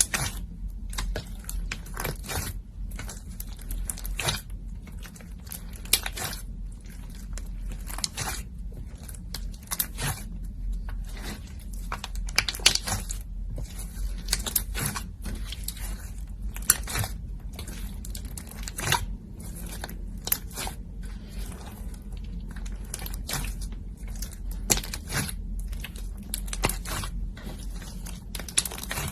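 Slime mixed with cotton and iceberg slime being squeezed and pressed by hand: a close, irregular run of sticky crackles, pops and squishes with short pauses.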